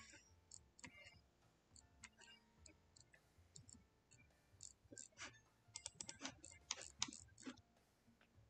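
Faint, irregular clicks from computer input devices, sparse at first and coming in quick runs about five to seven and a half seconds in.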